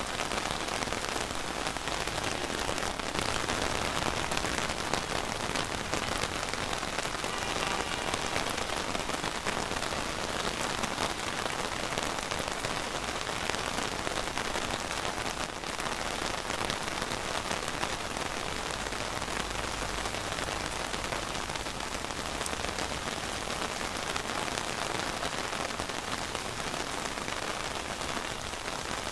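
Steady rain falling on surfaces, an even hiss of many drops with no break.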